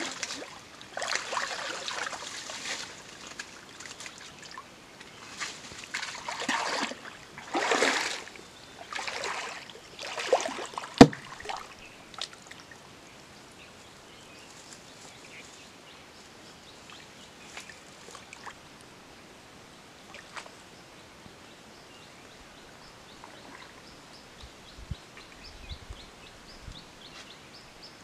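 Muddy stream water splashing and sloshing as a man wades and gropes with his hands along the bank, in several bursts through the first half, with one sharp click about eleven seconds in.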